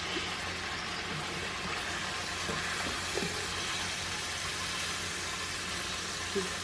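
Seasoned salmon frying in a pan, a steady sizzle, with a few faint light taps.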